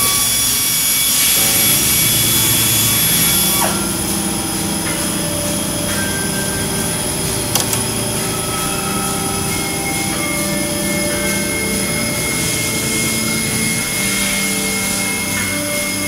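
Twin-turret CNC lathe machining a metal bar under flood coolant: a steady mix of motor whine and coolant hiss, brighter for the first few seconds. There is a single sharp click about seven and a half seconds in, and a higher whine comes in near ten seconds.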